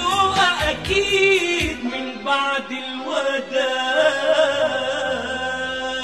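Closing bars of an Egyptian pop song: sung phrases over the band in the first couple of seconds, then a long held closing chord through the second half.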